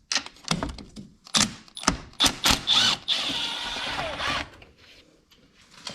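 Socket ratchet wrench working a bolt loose: a few separate clicks and knocks, then about three seconds in a quick run of continuous ratcheting lasting about a second and a half.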